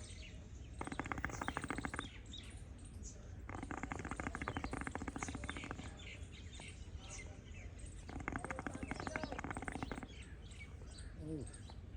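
Small birds chirping throughout, with a rapid rattling buzz sounding three times, each lasting one to two seconds.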